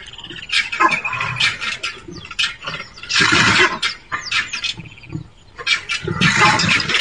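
A leopard fighting crested porcupines: harsh animal snarls and hisses come in loud bursts about three seconds in and again near the end, with quick rattling clicks between them.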